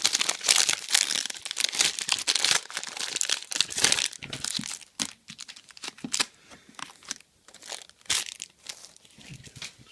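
Foil trading-card pack wrapper crinkling and tearing as a pack is ripped open, dense for the first four seconds or so, then lighter rustling and ticks of cards being handled.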